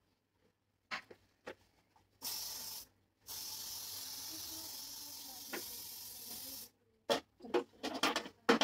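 Aerosol hairspray, L'Oréal Elnett, spraying onto hair: a short hiss of under a second, then a longer steady hiss of about three and a half seconds. A few short, sharp sounds come near the end.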